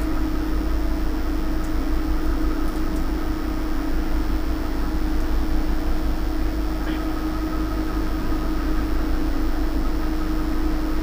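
A steady hum with one constant low tone over a low rumble, the sound of an appliance or mains hum running in the recording room, with a faint tick about seven seconds in.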